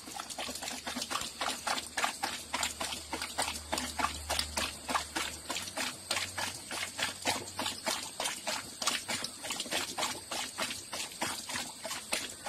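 Golden retriever lapping water from the stream of a running tap, a steady rhythm of wet laps, about three to four a second.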